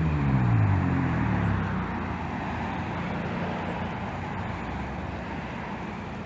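Car with a modified, unmuffled exhaust driving past and away. Its loud engine note drops in pitch over the first second and a half, then fades into a receding rumble of exhaust and road noise.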